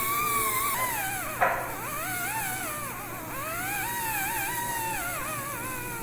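Dental drill whining, its pitch sliding down and up as it is loaded and eased off, with a sharp dip and a brief gritty grinding about a second and a half in.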